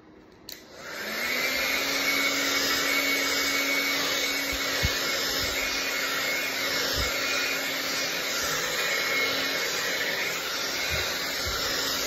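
Handheld hair dryer with a comb nozzle, switched on about a second in, then running steadily: blowing air with a steady motor hum.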